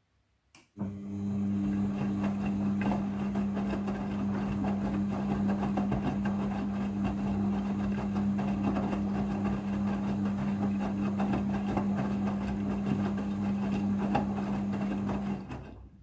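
Midea front-loading washing machine's drum motor clicking on, then turning the drum with a steady low hum and wet laundry tumbling inside during the rinse, stopping near the end.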